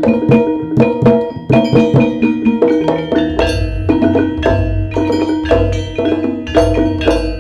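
Jaranan gamelan accompaniment: drums and ringing metal mallet instruments playing a fast, busy rhythm. A deep low tone comes in about three seconds in and keeps pulsing under the beat.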